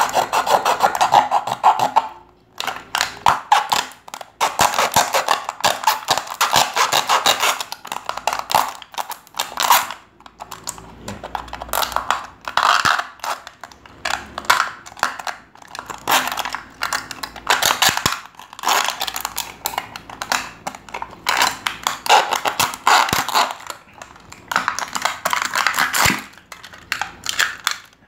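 Hand sawing with the metal-saw teeth on the file of a Victorinox SwissTool Spirit Plus multi-tool: rapid back-and-forth rasping strokes, steel teeth biting into the workpiece, broken by a few short pauses.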